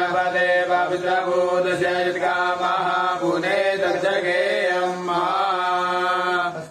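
Two men chanting Sanskrit blessing mantras together in a steady, sustained melodic recitation.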